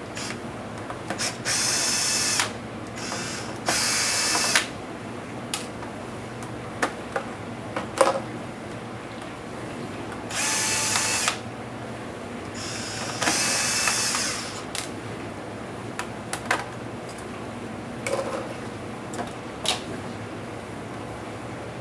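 Small electric power screwdriver whirring in four short bursts of about a second each, backing screws out of a laptop case, with sharp clicks and taps of screws and tools between the bursts.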